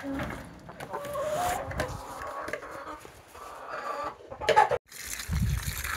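Chickens clucking, a series of short calls. About five seconds in, the sound cuts off briefly and gives way to a low rumbling noise.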